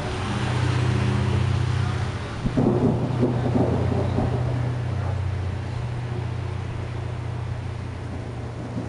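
Rolling thunder rumbling, with a louder crackling peak about two and a half seconds in, then slowly dying away.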